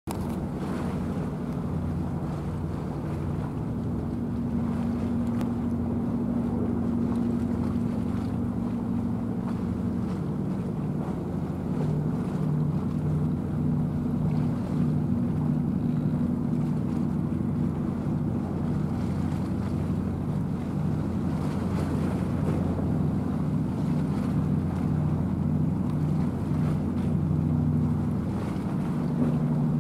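Low, steady drone of a ship's engine, with wind on the microphone.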